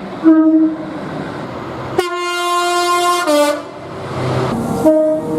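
Train horns sounding in a string of short clips that cut abruptly from one to the next: a short chord blast near the start, a longer chord rich in overtones from about two seconds in lasting a little over a second, and another short blast near the end. A steady rumble of noise fills the gaps between blasts.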